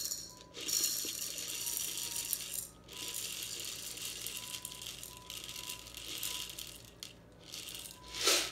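Dry popcorn kernels pouring from a glass jar into a plastic measuring cup, rattling steadily in two long pours, with a short, louder rattle near the end.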